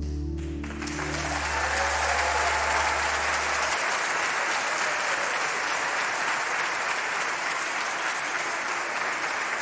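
Audience applauding, the clapping starting just under a second in and holding steady, while the last held notes of the music die away in the first few seconds.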